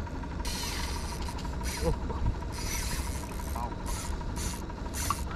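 A boat's outboard motor running low and steady nearby, overlaid from about half a second in by a string of short, irregular rasping bursts.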